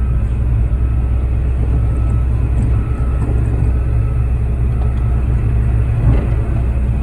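Concrete mixer truck's engine running steadily while the drum turns and discharges concrete, a continuous low drone.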